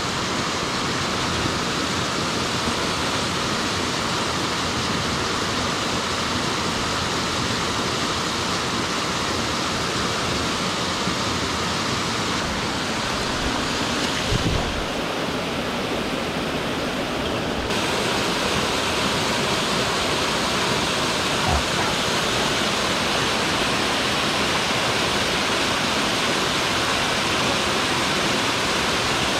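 Waterfall rushing steadily over rock in a mountain gorge. A brief low bump comes about halfway through, and a few seconds later the rush grows a little fuller and brighter.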